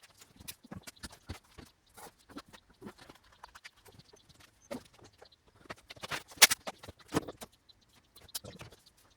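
Irregular small clicks, taps and scrapes of hand tools and balsa wood being worked on a model aircraft's damaged undercarriage mount, with a louder cluster of knocks about six seconds in.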